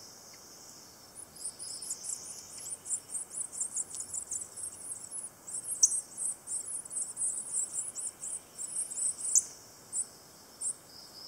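Prothonotary warbler nestlings begging from inside the nest cavity as a parent feeds them: a fast run of high, thin peeps, about four a second, starting about a second in and thinning to a few single peeps near the end.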